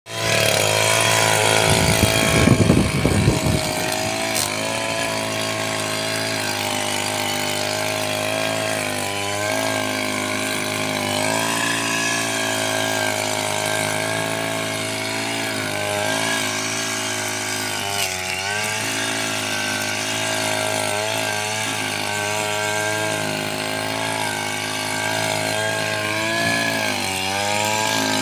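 Backpack brush cutter's petrol engine running at high speed while its trimmer head cuts grass. The engine note dips in pitch several times and picks up again. There is a brief rough, louder burst about two to three seconds in.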